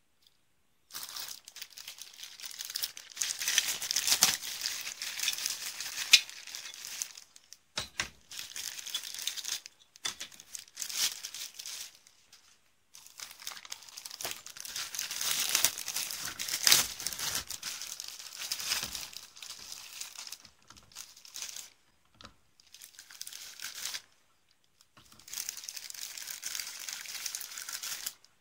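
Clear plastic parts bags of a plastic model kit crinkling and rustling as they are handled and opened, in stretches broken by short pauses.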